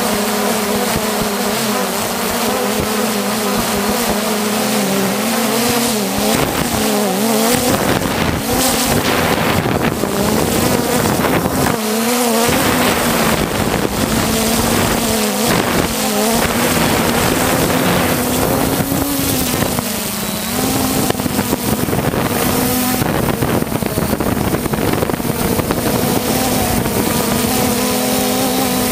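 3DR Solo quadcopter's motors and propellers humming loudly, heard from its own on-board camera. The pitch wavers up and down every few seconds as the throttle changes during the descent, with some wind noise on the microphone.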